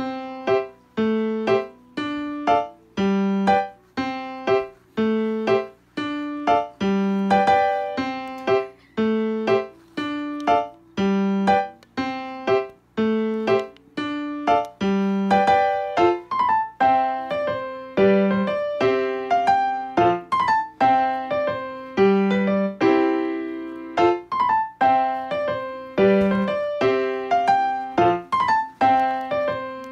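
Background music played on a piano-like keyboard: a light melody of struck notes in a steady rhythm, growing busier about halfway through.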